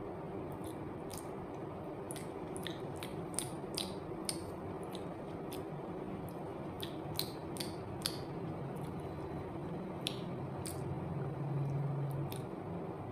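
Close-up mouth sounds of eating a soft peeled banana: chewing with wet lip smacks and clicks, scattered irregularly over a steady low background hum. Near the end a low steady hum swells for about a second.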